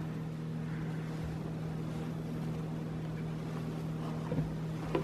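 A steady low hum with a few fainter tones above it, and two brief knocks near the end.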